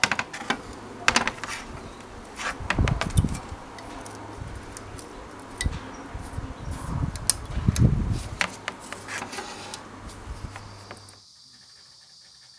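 Brittle, rust-eaten sheet metal from an old church cross crackling, clicking and snapping as gloved fingers break and crumble it, with a few dull thumps and a faint low hum beneath. About eleven seconds in it gives way to quiet room tone.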